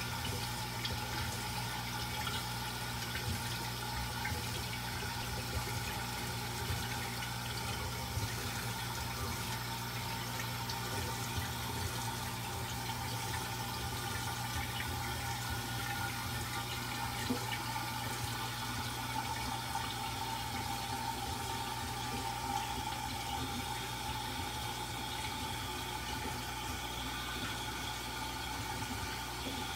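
Water running steadily during an aquarium water change, fed from a tap by hose into the tank while a submersible pump drains it, with a steady low hum underneath.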